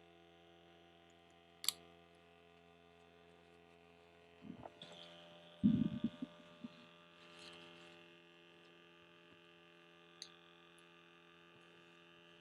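A faint steady electrical hum, with a sharp click about two seconds in and a brief cluster of knocks and rustles around the middle, as parts of a battery-powered coil cleaner are handled.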